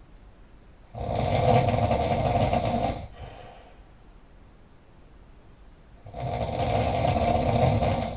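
Very loud snoring: two long rasping snores, each about two seconds, starting about a second in and again about six seconds in, with quiet breathing in between.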